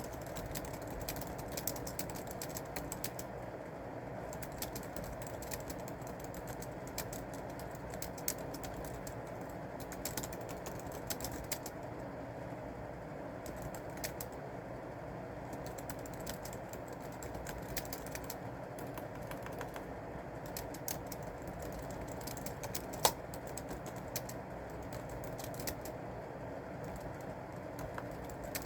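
Typing on a computer keyboard in irregular bursts of key clicks with short pauses, over a steady low background hum. One louder click or knock stands out about 23 seconds in.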